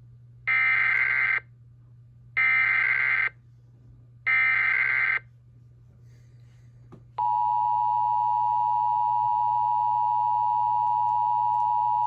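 Emergency Alert System encoder/decoder sending a tornado warning: three short bursts of SAME header data tones, each under a second and about two seconds apart, then about seven seconds in the steady two-tone EAS attention signal starts and holds. The header bursts carry the coded alert, and the attention signal announces the voice message to follow.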